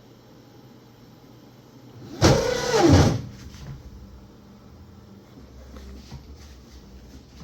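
Creality K1 Max 3D printer's stepper motors running a self-test move: a loud buzz about two seconds in, lasting under a second, its pitch sliding down as it ends. Faint ticks and a low hum follow.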